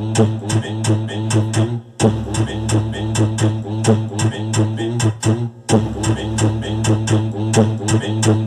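Music played loud through a car audio rig of amplifiers, subwoofer, midrange speakers and horn tweeters. It has a heavy steady bass and a fast beat of sharp ticks at about four a second, and it drops out briefly twice.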